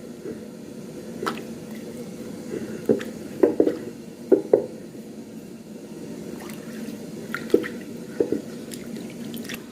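Wet squelching and dripping from kitchen work with liquid, broken by a dozen or so short sharp knocks and clicks.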